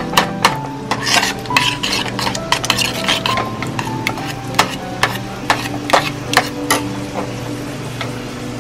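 A metal spoon stirs a thick cheese sauce in a stainless steel saucepan, clicking and scraping against the pan's sides and bottom at irregular intervals. Quiet background music plays underneath.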